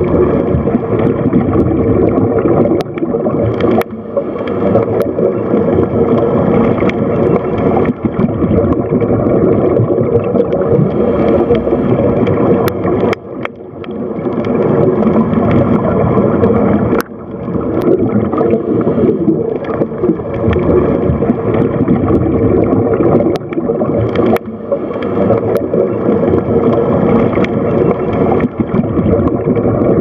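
Steady rushing, gurgling water noise of an underwater ocean recording, with a few faint clicks and short dips in level about 13 and 17 seconds in.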